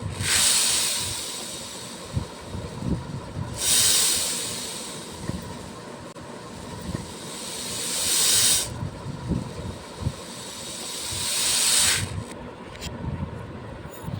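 Beads being poured in a steady stream: a dense, hissing pour in four long swells. The first two start abruptly and fade away; the last two build up and stop abruptly.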